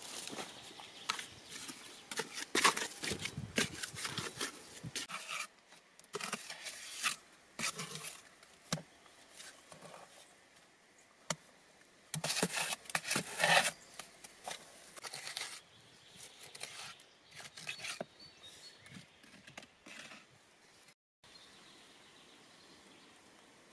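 A person moving about and handling things: irregular rustling, scraping and crackling in bursts, busiest in the first few seconds and again about halfway through, quieter near the end.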